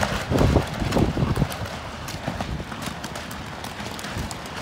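Strong wind gusting over the microphone, heaviest in the first second or so, then steadier, with scattered light clicks and taps throughout.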